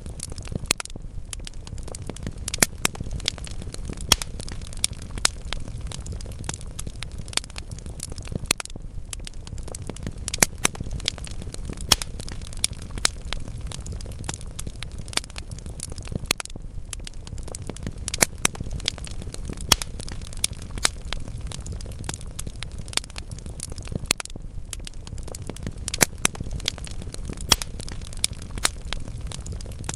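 Wood fire crackling in a fireplace: burning logs giving off irregular sharp pops and snaps over a steady low rumble of the flames.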